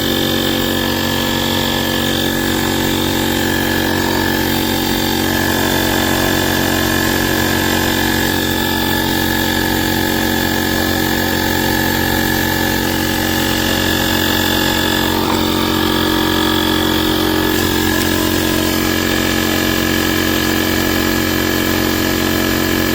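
Inzeetor ITI-001 12V portable tire inflator's compressor running steadily, pumping up a car tire toward its 33 PSI auto-shutoff target.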